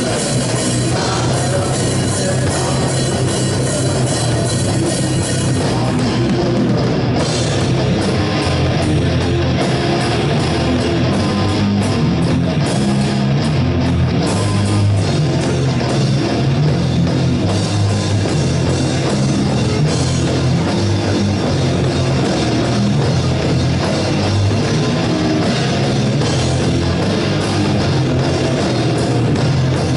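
Live rock band playing loud and steady, with electric guitars, bass guitar and a drum kit.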